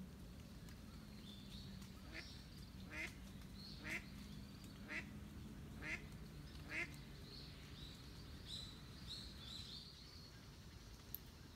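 An animal call repeated six times, about a second apart, followed by faint high bird chirps.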